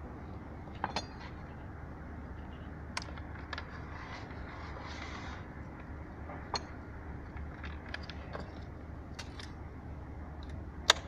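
Scattered light clinks and clicks of hand tools and pipe fittings being handled during a water-pipe repair, with one sharper click near the end. A short hiss comes about four to five seconds in, over a steady low hum.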